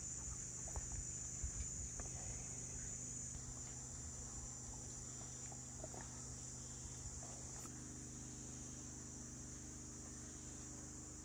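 Steady high-pitched chorus of insects, continuous without a break, over a faint low steady hum, with a few soft clicks in the first couple of seconds.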